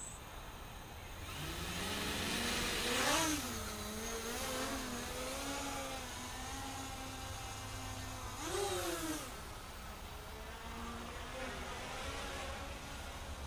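The four Multistar 2404 Elite brushless motors of a 250-size quadcopter spin up about a second and a half in and whine as it lifts off and flies. The pitch rises and falls with the throttle, with sharp surges about three and eight and a half seconds in.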